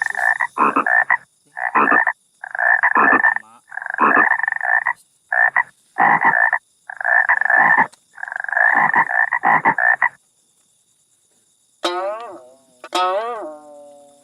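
A frog croaking loudly and repeatedly: about ten short calls in a row, stopping about ten seconds in. Near the end, a few plucked guitar notes ring out.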